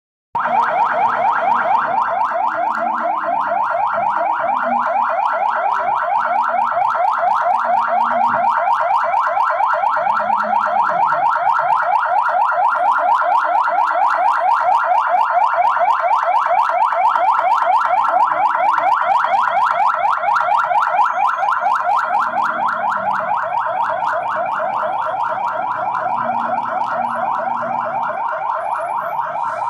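An electronic alarm tone pulsing rapidly, several times a second, without a break and at an even pitch.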